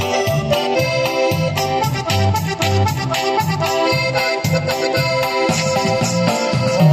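Dance music led by an electronic organ, its held reedy chords over a steady bass beat.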